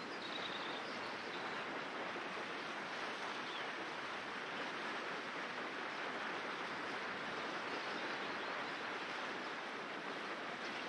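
River water rushing steadily over a stony bed.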